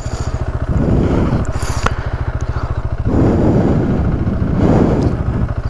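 Motorcycle engine idling with a steady pulsing beat, while gloved hands rummage in the fabric tank bag, making rustling and scraping sounds three times and one small click.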